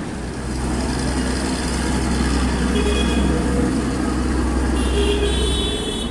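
Heavy diesel goods truck's engine running as it drives past, a steady low drone that eases near the end, over street traffic. Short horn toots sound about three seconds in and again near the end.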